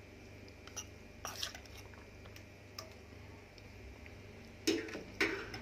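Metal spoon clinking and scraping lightly against a wok and a steel bowl as a wet chopped onion, tomato and green chilli mix is spooned into oil, with two louder knocks near the end.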